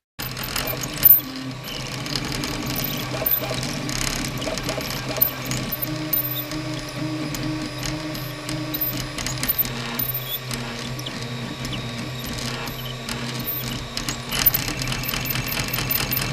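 FLSUN 3D printer's stepper motors whining as it prints: steady tones that jump to a new pitch every second or two as the moves change speed, with scattered small clicks.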